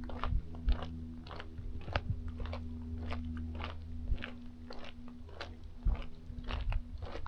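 Footsteps of a person walking at a steady pace, a little under two steps a second, over a steady low hum.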